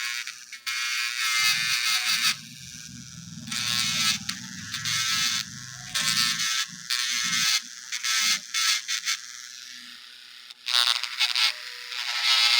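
Portable cordless electric nail drill filing a fingernail: a high-pitched whine with a rough grinding edge, coming in repeated bursts a second or two long.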